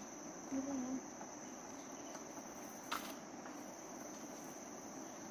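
Forest insects trilling in a steady, unbroken high tone. A baby makes a short coo about half a second in, and there is a single sharp click about three seconds in.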